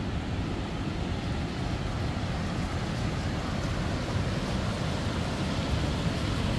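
Steady rushing roar of the Youghiogheny River's falls and rapids, strongest in the low range.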